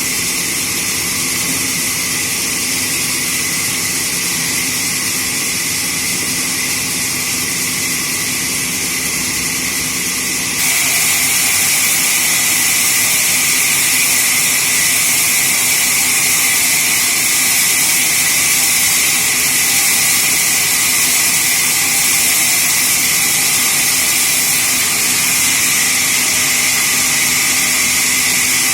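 Sawmill saw running steadily through a rain tree log, a loud, high, hissing whine. About ten seconds in it gets louder and stays louder.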